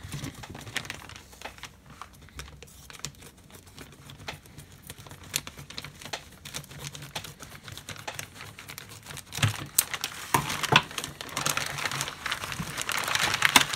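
Clear plastic packaging, a bag and a moulded blister tray, crinkling and clicking as it is handled and opened. The crackles come irregularly, louder about ten seconds in and again near the end.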